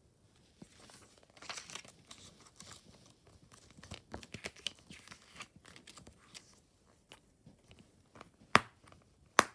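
A plastic Blu-ray case being handled: light rustling and small clicks, with two sharp, louder clicks near the end.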